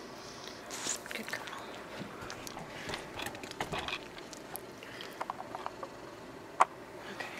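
A small dog's mouth noises: faint wet clicks and lip smacks among soft rustles, with one sharper click about two-thirds of the way through.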